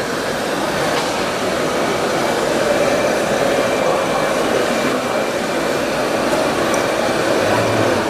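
Steady mechanical whirring of radio-controlled model construction machines over the din of an exhibition hall, with a faint thin whine held throughout.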